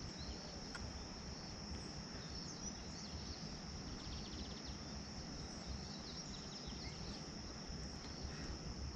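Outdoor rural ambience: a steady high-pitched insect chorus, cricket-like, with a few faint bird chirps over a low, even background rumble.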